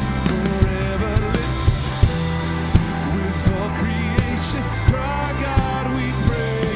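Live worship band playing a contemporary worship song: lead and backing singers over drum kit, keyboard, acoustic and electric guitars, with a steady drum beat landing about every 0.7 s.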